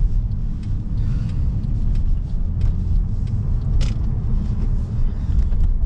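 Cabin noise of a Mercedes C230 on the move: a steady low rumble of engine and road noise, with a few faint ticks, the sharpest about four seconds in.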